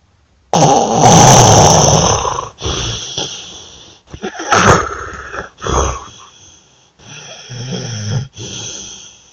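Loud, irregular snoring. A long, loud snore begins about half a second in, followed by several shorter snores and snorts at uneven intervals.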